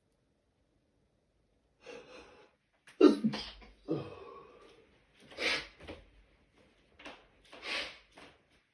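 A person in a sneezing fit: a quick inhale about two seconds in, then a run of sneezes with gasps between them, the first and loudest about three seconds in.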